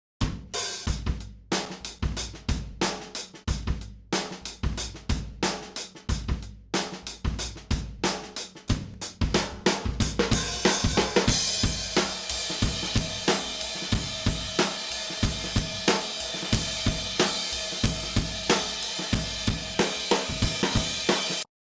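Multitrack drum kit recording playing back: a kick and snare groove of sharp, evenly spaced hits, joined about halfway by a continuous cymbal wash. It cuts off abruptly near the end.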